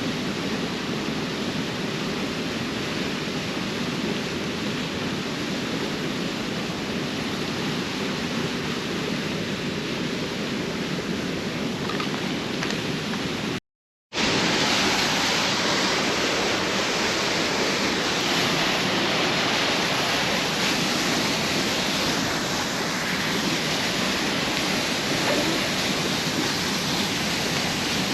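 Steady rushing of a large waterfall. It cuts out for a moment about halfway through and comes back slightly louder and brighter.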